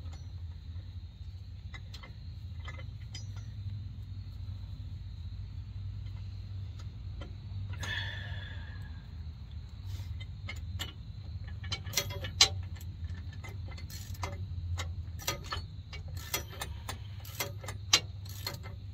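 Hand wrench work on the bottom lock nuts of a Sumo Springs bracket: irregular metallic clicks and ticks, growing more frequent and louder from about halfway through, over a steady low hum. A short scrape about 8 seconds in.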